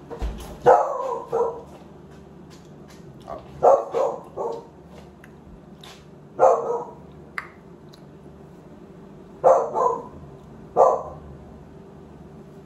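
A dog barking in short bursts of one to three barks, with pauses of a few seconds between bursts.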